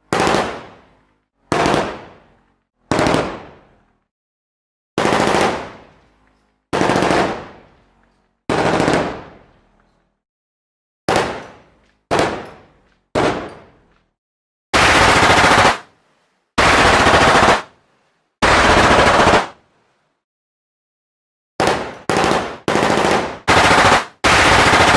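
Machine gun firing short bursts, one after another with silence between, most ending in a fading echo tail. Three longer bursts come in the middle, and near the end a quick run of five bursts, each cut off sharply.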